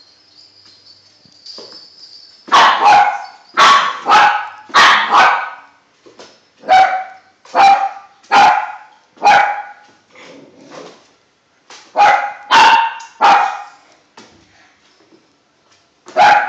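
Eight-week-old puppy giving high-pitched play barks at a toy. About a dozen sharp barks come in three bursts of three or four, starting a couple of seconds in, with short pauses between the bursts.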